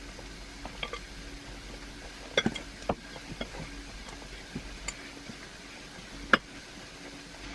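Spoon knocking and scraping against a mixing bowl while stirring stiff cookie dough, in irregular clinks with a few sharper knocks about two and a half, three and six seconds in.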